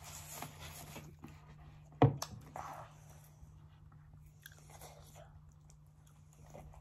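A child biting and chewing a pepperoni puff roll close to the microphone, with small crunchy clicks. A single sharp knock about two seconds in is the loudest sound.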